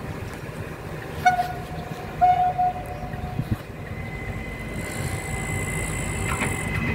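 Train horn giving two short blasts, the second a little longer, over the low rumble of a train. A steady high whine then sets in and grows louder.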